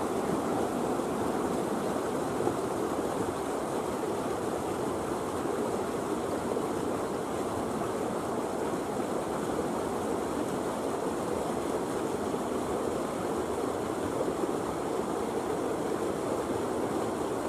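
Steady rushing background noise, even and unbroken, a little louder in the first second or so.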